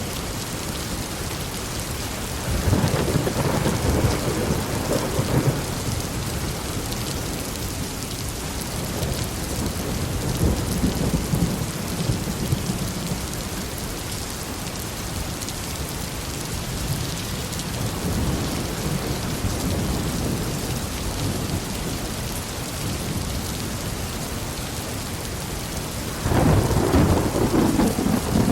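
Heavy rain falling steadily in a thunderstorm, with rolls of thunder rumbling up over it several times, the loudest cracking in abruptly near the end.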